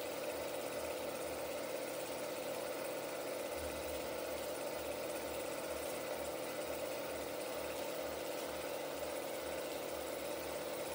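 A 16mm film projector running: a steady mechanical whir with a low, rapid pulsing underneath.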